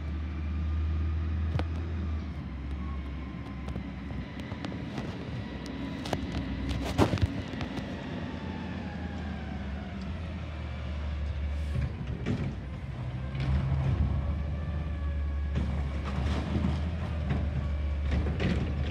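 Front-loader garbage truck with a Curotto-Can arm, its diesel engine running as it drives up, with a whine that slowly shifts in pitch. Sharp knocks and clanks come through now and then, the loudest about seven seconds in and a cluster near the end.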